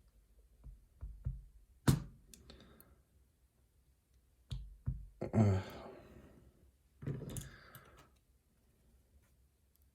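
Small metal lock parts being handled: a few sharp clicks and taps of pin tumblers and tweezers as a challenge lock is taken apart. Two short breathy hums or sighs come from the person working on it, about five and seven seconds in.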